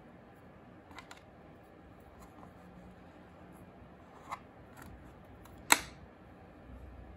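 Faint room hiss with a few small clicks and taps from hands working clay with a slim sculpting tool on a work board. The loudest, a single sharp click, comes near the end.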